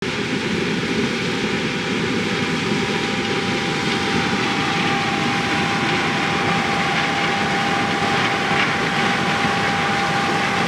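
Steady running of a large engine, with a faint steady whine that grows clearer about halfway through.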